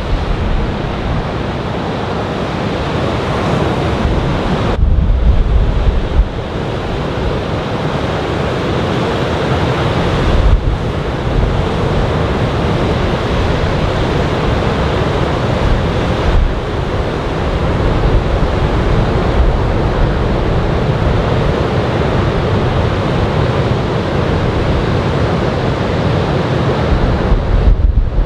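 Surf from a typhoon swell breaking and washing on a sandy beach, a steady roar, with wind buffeting the microphone in gusts about 5 seconds in, around 10 seconds and near the end.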